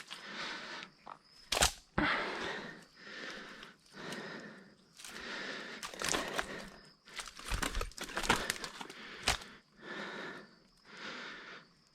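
A person pushing through dense scrub on foot: leaves and branches rustling in irregular bursts, with a few sharp cracks of snapping twigs.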